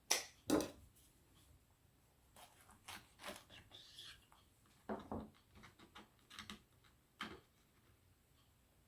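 Faint, scattered clicks and rustles of a flour tortilla wrap being rolled up and handled, with two sharper taps at the start and a few more near the middle and end.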